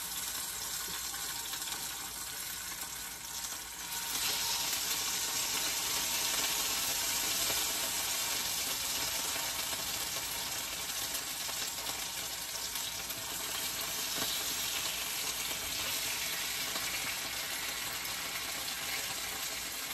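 Marinated oxtails searing in hot olive oil in a cast iron skillet: a steady frying sizzle with the grease popping, because liquid from the marinade is in the pan. The sizzle grows louder about four seconds in.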